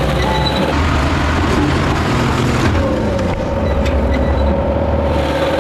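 Road roller's diesel engine running steadily under load, with a few faint clicks.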